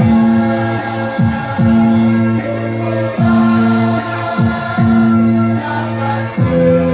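A primary-school choir singing with instrumental accompaniment and a strong bass line; the notes change about every second and a half.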